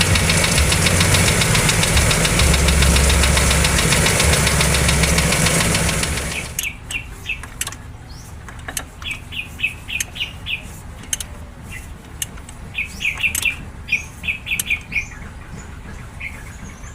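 Toyota 2E four-cylinder engine running with a fast, even knock from inside the engine, then stopping about six seconds in. After that, small birds chirp in short repeated runs.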